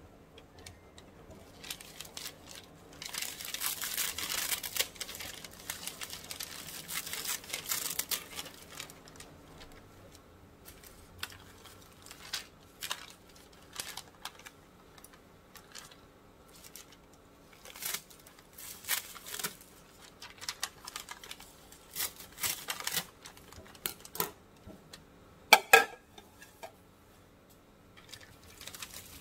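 Kitchen scissors cutting through sheets of crisp roasted seasoned laver (gim) still in their foil-lined plastic packets, the packaging crinkling and crackling. A dense run of cutting comes in the first part, then scattered snips and rustles, with two sharp clicks near the end.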